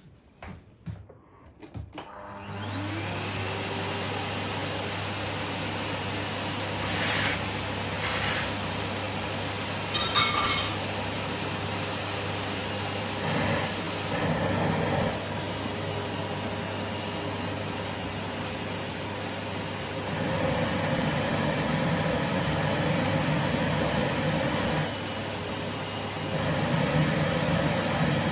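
Vacuum cleaner switched on: after a few clicks, the motor spins up about two seconds in and settles into a steady suction hum with a high whine. A few brief rattles follow, and the sound gets louder twice in the second half.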